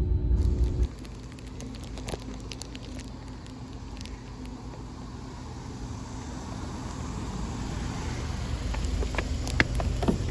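Music cuts off about a second in, giving way to the steady low rumble of street traffic, slowly growing louder, with a few sharp knocks near the end.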